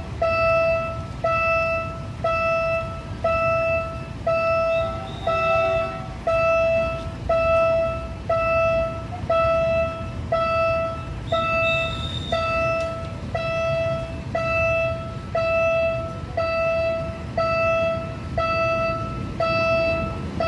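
Level-crossing warning bell ringing steadily, one ding about every second, over a low rumble. A brief high whistle sounds about twelve seconds in.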